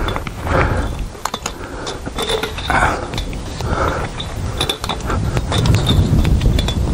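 Barbed wire scraping and creaking as gloved hands wrap its cut end around the strand at a fence post, one scrape roughly every second as each turn goes round, with small metallic clicks between.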